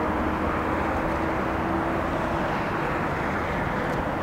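Jet airliner's engines on final approach, heard across the airfield: a steady rumble with a faint low hum that rises slightly in pitch as the aircraft nears.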